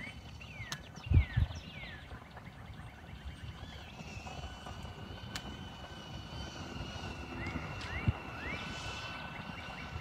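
Wind buffeting the microphone in a low rumble, with two stronger gusts about a second in. Birds chirp in short sweeps near the start and again near the end, over a faint steady high whine.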